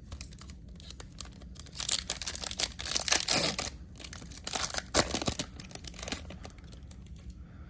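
Foil trading-card pack wrapper being torn open and crinkled: two stretches of dense crackling, about two seconds in and again about five seconds in, with lighter rustling around them.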